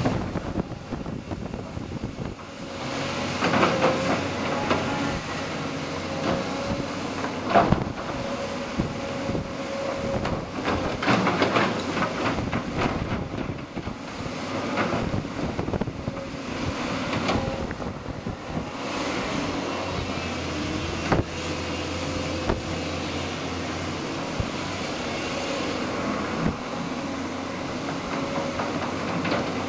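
Tracked hydraulic excavator working: its diesel engine runs steadily with a held whine, under irregular clanks, scrapes and a few sharp knocks from the bucket and tracks.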